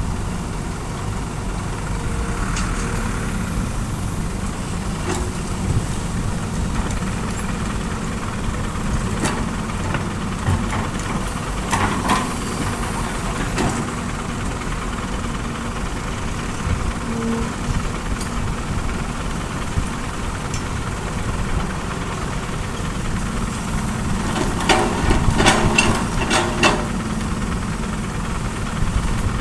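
Heavy diesel engines of an excavator and dump truck running steadily with a low rumble. A few sharp knocks come about twelve seconds in, and a quick run of clattering knocks comes near the end.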